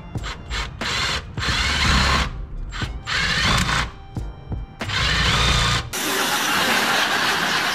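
Cordless drill running in three bursts of about a second each, boring out a mounting hole in a metal bracket. About six seconds in the sound cuts to a steady, noisy track from an inserted TV clip.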